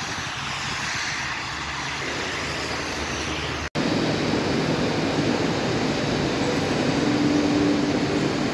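A rail maintenance vehicle's engine runs steadily as it approaches through the yard. After an abrupt cut about four seconds in, a louder steady drone of trains standing at a station platform follows, with a brief held tone near the end.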